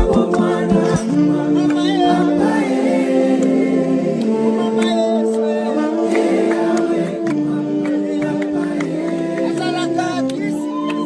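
Background music: voices singing in a group without instruments, holding long chords that shift every second or so.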